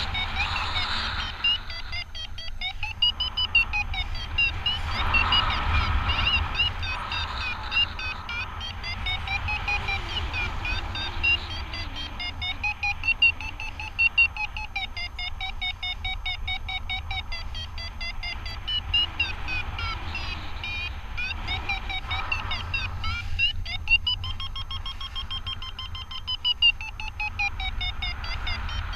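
Paragliding variometer beeping rapidly, the pitch of its beeps swelling and sinking as the climb rate changes: the glider is climbing in lift. Steady wind rumble on the microphone underneath.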